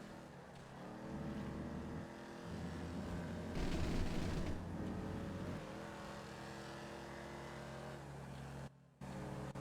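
Car engine and road noise heard from inside the moving car: a steady hum with a louder rush for about a second near the middle. The sound briefly cuts out near the end.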